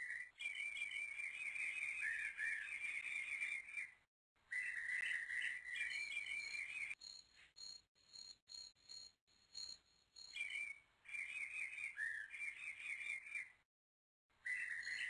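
Outdoor nature ambience of birds chirping in quick runs over a steady insect trill. It cuts out abruptly twice, briefly each time.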